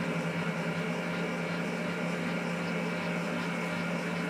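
Electric stand mixer running at a steady speed, a constant even hum, working like new.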